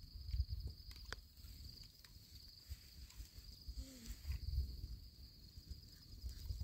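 Crickets trilling steadily, a continuous high-pitched chirring, over a gusty low rumble, with a few faint clicks and a brief soft vocal sound about four seconds in.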